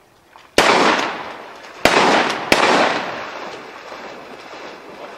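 Three shotgun blasts at flying ducks: one about half a second in, then two more close together a little over a second later, each followed by a long rolling echo.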